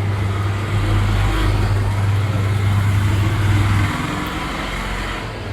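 A motor running with a steady low hum that eases off about four seconds in.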